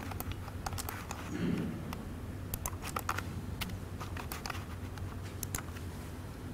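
Quiet room tone in a small hall with a steady low hum, broken by scattered faint clicks every fraction of a second.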